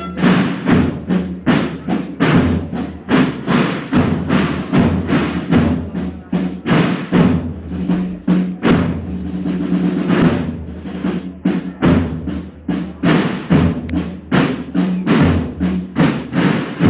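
Drum-led music: drums beating a steady, fast march rhythm of about four strokes a second over a low sustained tone.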